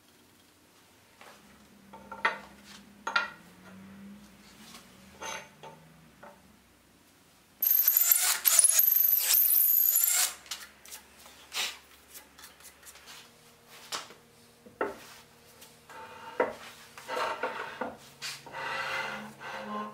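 Cordless drill boring a hole into a wooden beam for about three seconds, with a steady whine as the bit cuts. Scattered light taps come before it, and wooden knocks and scrapes near the end as a beam is set into its bracket.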